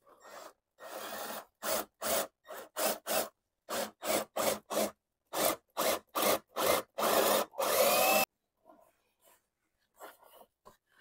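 Cordless drill boring a hole through wooden wall siding, run in many short bursts of the trigger. It ends about eight seconds in with one longer run in which the motor's pitch rises.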